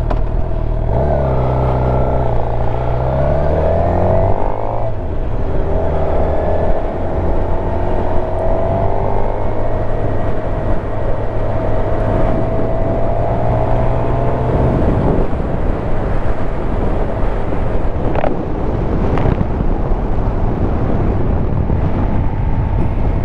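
Suzuki GSX-R750's inline-four engine pulling away under throttle while riding, over wind noise on the mic. The engine note climbs, breaks briefly at a gear change about five seconds in, climbs again more slowly, and drops away as the throttle closes about fifteen seconds in.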